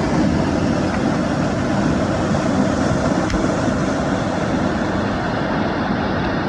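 Steady rushing noise of a waterfall, falling water with no break.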